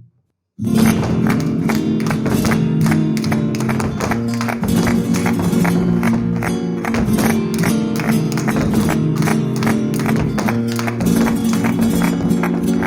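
Flamenco music, a farruca: guitar with fast, dense percussive strikes over sustained low notes, cutting in after a brief silence about half a second in.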